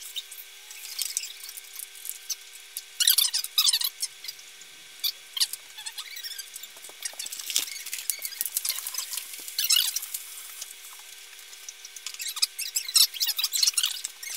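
Handling noise from a NeoPixel LED strip and small parts being fitted into a sign letter: scattered bursts of high-pitched crinkling, squeaks and clicks, over a faint steady hum.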